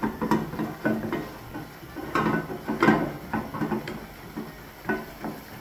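A utensil knocking and scraping against a cooking pot in a run of irregular clinks, the loudest about two and three seconds in.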